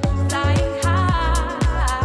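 Background music with a steady, even beat and heavy bass, with a wavering melody line over it in the middle.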